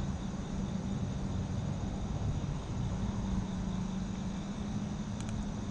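Steady low rumble with a low hum running under it, and a few faint ticks near the end.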